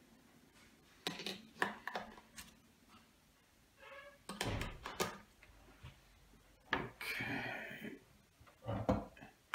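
Handling noises from an opened Fitbit Aria bathroom scale: small clicks as AA batteries are pressed into its battery holder, a louder knock about halfway, then a scrape and knocks as the plastic scale is turned over and set down on a wooden table.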